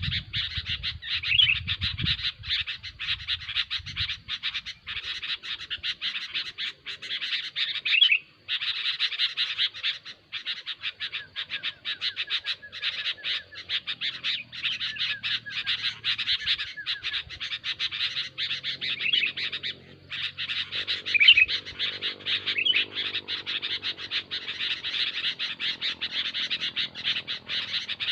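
Sooty-headed bulbuls (kutilang) chattering noisily, a dense, nearly unbroken stream of rapid calls with a few brief pauses. It is the busy kind of bulbul calling used as a lure recording to draw wild bulbuls in.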